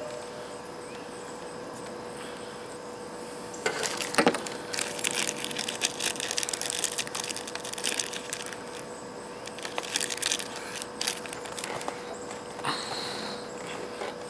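A clear plastic parts bag crinkling and rustling in the hands for several seconds, with a few sharper clicks, the loudest about four seconds in. A faint steady hum runs underneath.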